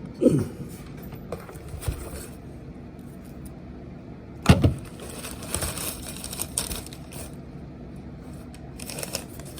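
A parcel being handled: a short falling squeak right at the start, a single thump about four and a half seconds in, then rustling and crinkling of packaging over a steady low hum.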